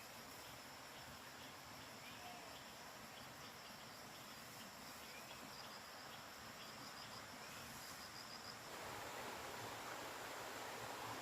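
Faint forest ambience: an insect trilling in a fast, high-pitched pulsing chirp over a low hiss. About three-quarters of the way through, the trill stops and a louder steady rushing hiss takes over.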